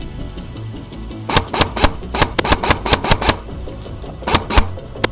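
Classic Army DT4 double-barrel airsoft electric gun firing a quick string of shots, about four a second for two seconds starting a little over a second in, then a few more shots near the end. Each shot puts out two BBs at once. Background music plays underneath.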